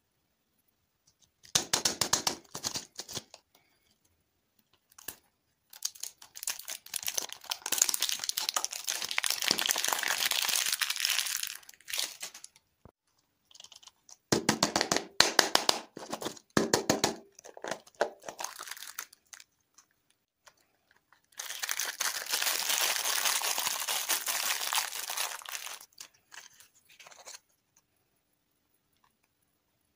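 Printed plastic wrapper of a toy-and-lollipop surprise ball crinkling and tearing as it is peeled off, in four bursts each a few seconds long. The third burst is a run of sharp clicks and snaps from handling the hard plastic ball.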